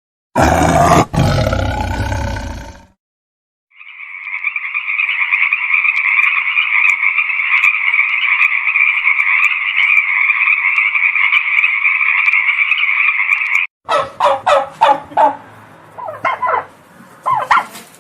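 A big cat's roar ends within the first three seconds. After a short gap comes a steady, even, high-pitched animal chorus for about ten seconds, then from about fourteen seconds in a turkey gobbling in quick repeated calls.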